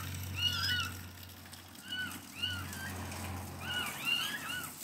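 Young kittens mewing in distress, short high cries that rise and fall, about ten in all, some overlapping as more than one kitten calls.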